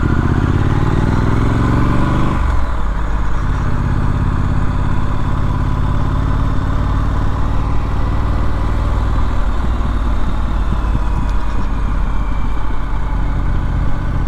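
Triumph Street Scrambler's 900cc parallel-twin engine under way, rising in pitch as it accelerates for about two seconds, dropping sharply at an upshift, then running at a steady cruise.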